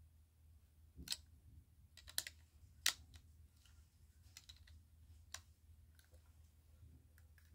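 Plastic LEGO bricks clicking as they are pressed and snapped together. A handful of sharp separate clicks, the loudest about three seconds in, over a faint low hum.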